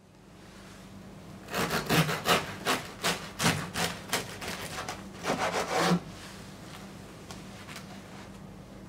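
A knife sawing through the crusty crust of a freshly baked multigrain loaf: a run of quick back-and-forth strokes starting about a second and a half in, a short pause, then a last few strokes that stop about six seconds in.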